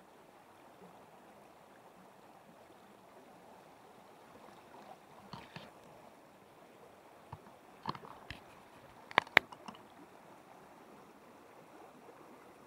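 Small creek flowing as a faint steady rush, with a few scattered knocks from handling and two sharp, loud clicks in quick succession about two thirds of the way through.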